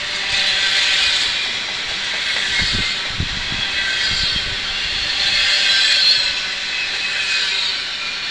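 Double-stack intermodal well cars rolling past on steel wheels: a steady rush of wheel-on-rail noise with a high metallic squeal that swells and fades every couple of seconds, and a few low knocks about three seconds in.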